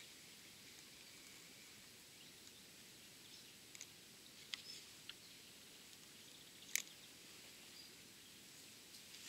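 Near silence: faint outdoor ambience with a thin high hiss and a few short, soft clicks, the loudest nearly seven seconds in.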